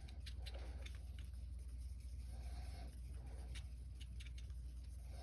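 Light scraping and ticking of a stick stirring two-part plastic epoxy on a hard surface, over a steady low hum.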